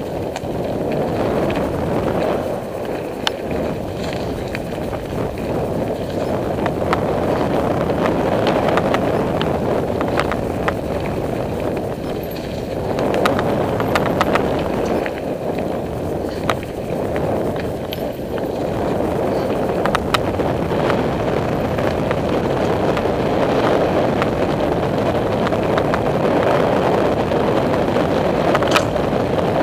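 Mountain bike rolling fast along dirt singletrack, with steady wind rush on the microphone and the tyres rolling over dirt and leaves. Frequent sharp rattles and knocks from the bike over roots and bumps.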